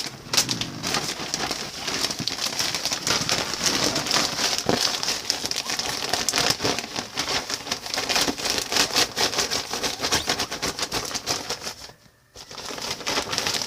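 A plastic chip bag being crinkled and squeezed in the hands, a continuous irregular crackle that stops briefly about twelve seconds in before starting again.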